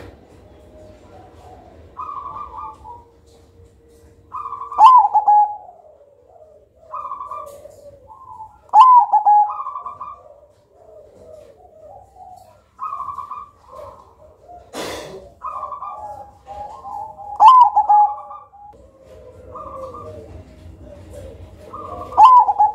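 Zebra dove (perkutut) singing its rhythmic cooing song, repeating short phrases every couple of seconds. Four of the coos are louder and rolling. A brief noisy burst comes about fifteen seconds in.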